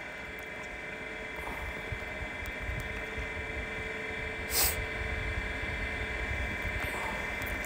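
Steady background hum with a faint high whine, and one short hiss about four and a half seconds in.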